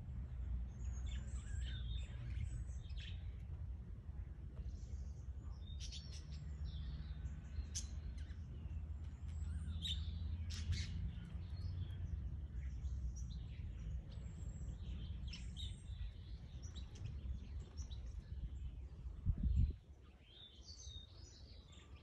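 Budgerigars chirping and chattering, many short high calls scattered throughout over a steady low rumble. A dull thump near the end, after which the rumble drops away.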